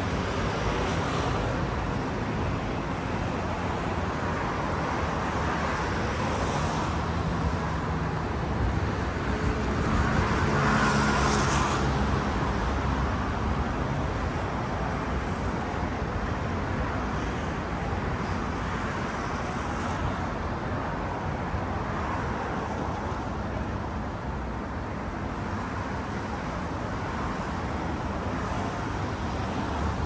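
Outdoor city ambience dominated by a steady wash of road traffic noise, swelling louder for a couple of seconds about ten seconds in.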